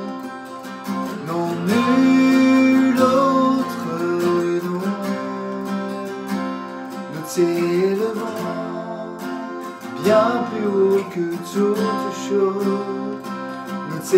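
A man sings in phrases while strumming chords on a Fender acoustic guitar.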